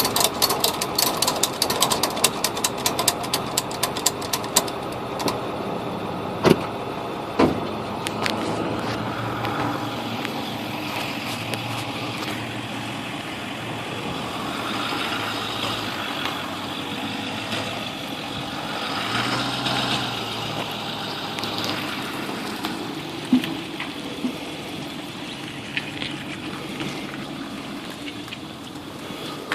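Tow truck engine running steadily, with a fast run of clicks over the first few seconds and two sharp knocks a second apart soon after.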